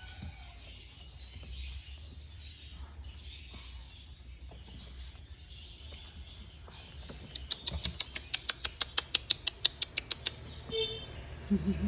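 Newborn Chihuahua puppies squeaking faintly while nursing. About seven seconds in comes a quick run of sharp clicks, about seven a second for some three seconds, the loudest part, followed by a short higher whimper.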